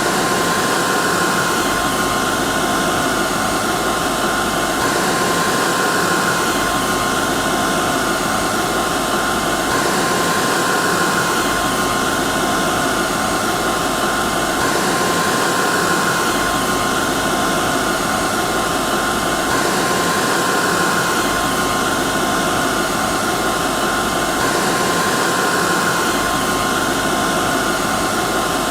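Hair dryer running steadily: a constant rushing blow with a fixed whine in it, the sound repeating itself about every five seconds.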